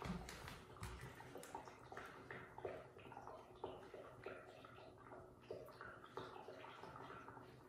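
Faint, irregular ticks and rustles of young kittens shuffling and pawing about on a cushion.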